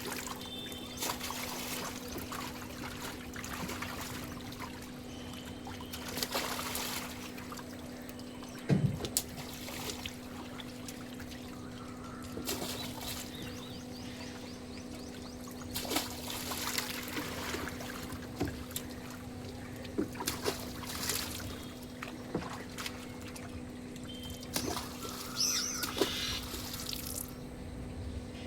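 Water pouring and splashing in irregular bursts over a steady low hum, with a sharp knock about nine seconds in.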